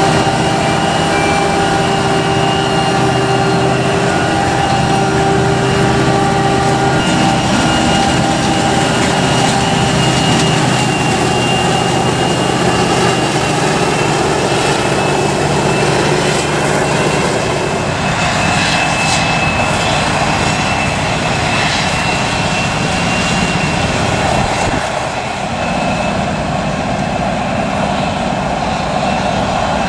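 Krone Big X 700 forage harvester chopping maize under load: a loud, steady heavy-machine running noise with a high, steady whine on top.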